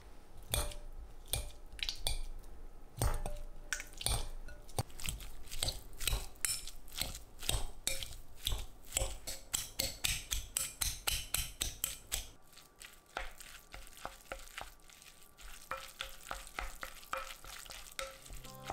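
Stainless-steel potato masher pressing peeled hard-boiled eggs in a glass bowl: a run of sharp, repeated mashing strokes, about two to three a second. About twelve seconds in it gives way to softer, sparser sounds of a wooden spoon stirring the mashed egg with mayonnaise.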